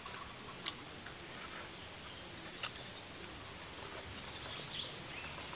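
Quiet rural outdoor ambience: a steady high insect hiss with a faint bird chirp near the end, and a few sharp clicks from eating with the hand and chewing.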